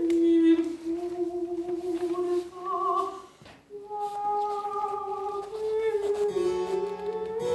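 Soprano singing a Baroque song in long, held notes, with a brief break about three and a half seconds in. Near the end an instrumental accompaniment joins her with a low held note.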